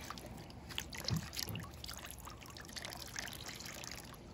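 Water poured from a small plastic cup trickling and splashing into the shallow pond of a plastic toy water table, with many small drips and splashes, a few louder ones about a second in.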